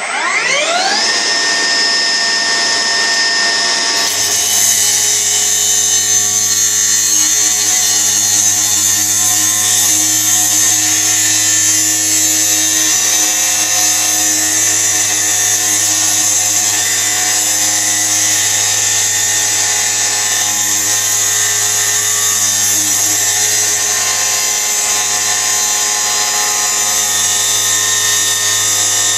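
A Milwaukee M18 FUEL 9-inch brushless cordless cut-off saw spins up with a rising whine. From about four seconds in its steel-cutting blade grinds steadily through rusty steel T-posts.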